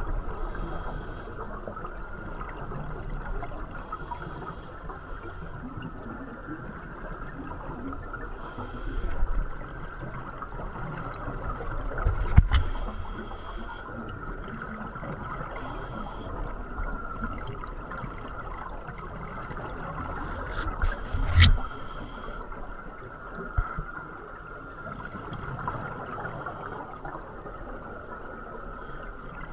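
Scuba regulator exhaust bubbles recorded underwater, coming in bursts every few seconds as the diver breathes out, over a steady hiss. There are two sharp knocks, at about 12 and 21 seconds.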